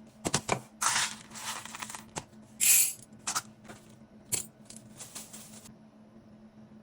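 Dry popcorn kernels and their packaging being handled: a few sharp clicks with rattling, rustling bursts, the loudest about two and a half seconds in. It dies away to a faint steady hum near the end.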